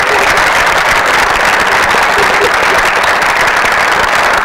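A theatre audience applauding steadily.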